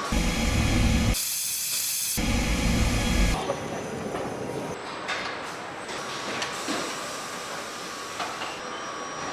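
Motorcycle assembly-plant noise: a steady hiss of air and machinery with scattered small clicks. The sound changes abruptly several times in the first three seconds, with two stretches of heavy low rumble.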